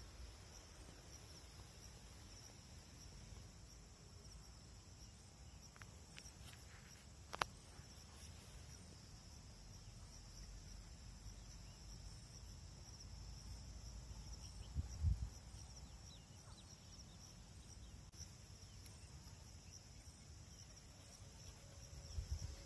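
Insects trilling steadily, a high-pitched continuous buzz, over a faint low rumble. A sharp click comes about seven seconds in and a dull thump about fifteen seconds in.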